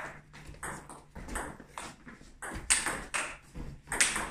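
Table tennis rally: the ball clicking sharply off the bats and bouncing on the table, a quick run of hits two or three a second.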